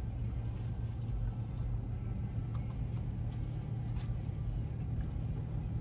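Steady low rumble of an idling car heard from inside the cabin, with a few faint clicks.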